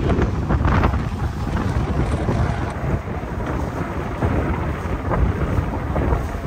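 Wind buffeting the microphone: a gusty low rumble with no voices, easing slightly after a cut about three seconds in.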